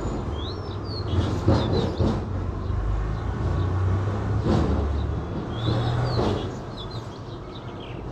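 Background noise: a steady low rumble with several knocks and a few short, high chirps.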